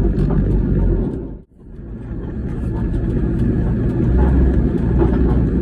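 Low grinding rumble heard from inside the cabin of a Toyota HiAce van driving slowly, the noise of a failing hub bearing. The sound cuts out briefly about a second and a half in, then returns.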